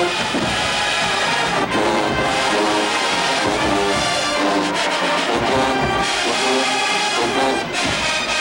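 Marching band playing in the stands: massed brass (sousaphones, trumpets, trombones) holding chords over drums.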